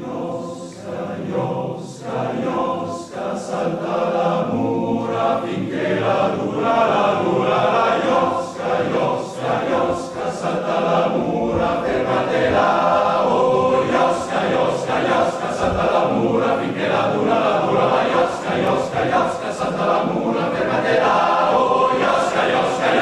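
Male choir singing, the men's voices sounding together without a break.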